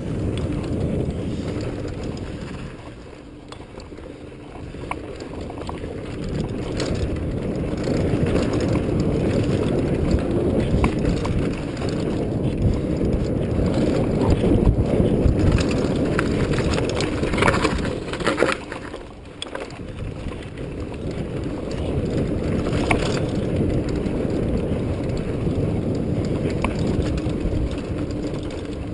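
Mountain bike ridden fast down dirt singletrack, heard from a camera on the bike: a steady rumble of tyres on dirt and wind on the microphone, with rattles and knocks from the bike over bumps, and brief drops in level about four seconds and nineteen seconds in.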